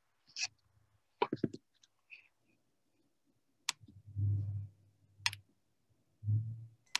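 A few scattered sharp clicks, with soft low bumps between them and near silence in the gaps.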